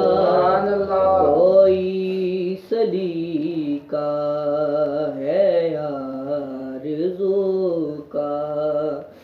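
A man singing an Urdu naat, an Islamic devotional song, in long held notes that slide up and down, with a few short pauses for breath.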